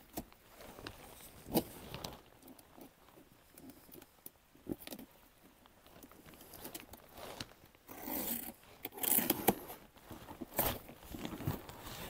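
Packaging being handled and torn open: rustling with scattered sharp clicks and crackles, and a louder spell of rustling and tearing about eight seconds in.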